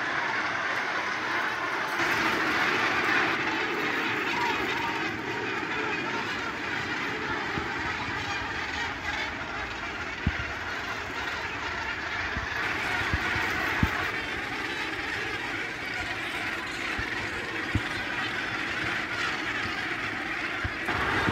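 Steady, dense din of a Cape gannet breeding colony, thousands of birds calling at once, with a few brief knocks.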